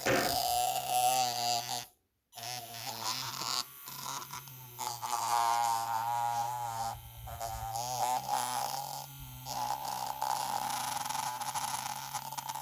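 Electric toothbrush motor buzzing steadily, its tone shifting and wavering at times, with a brief cut-out about two seconds in.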